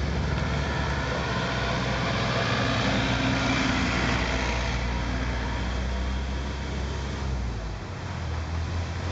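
A large engine running steadily amid road traffic noise, its low hum dropping away about seven and a half seconds in.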